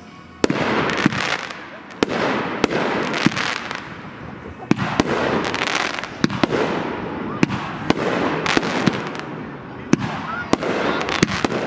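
Consumer (Class C) aerial fireworks going off: a rapid series of sharp bangs, about one a second, each followed by a spell of crackling.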